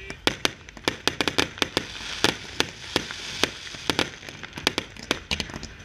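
Aerial firework shells launching and bursting in quick, irregular succession, several sharp bangs a second, with a crackling hiss between the reports.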